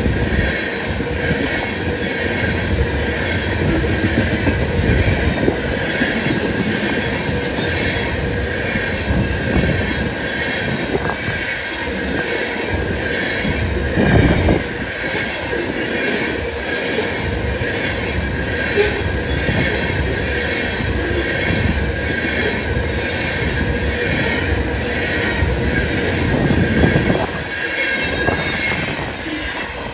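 Freight train of crude-oil tank cars rolling past: steel wheels on the rail with a steady squeal and a regular clickety-clack of wheels crossing rail joints. There is a louder knock about 14 seconds in.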